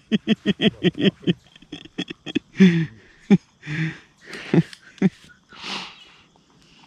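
A man laughing hard: a fast run of ha-ha pulses, about five a second, that breaks up into scattered laughs and breathy, wheezing gasps in the second half.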